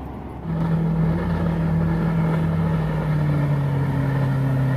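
Outboard motor on a small jon boat running at high speed as the boat passes, its steady drone starting suddenly about half a second in and sliding slowly lower in pitch.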